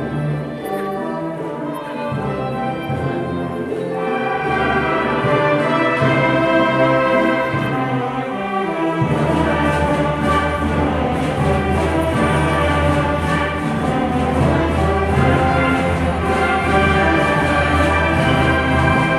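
School wind band of brass and woodwind instruments playing a piece. About nine seconds in the low brass and bass come in and the full band plays louder.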